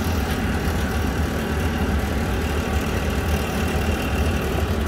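Atwood 8535-IV RV furnace running with a steady, rough rattle: a recurring fault that the owner says is getting worse.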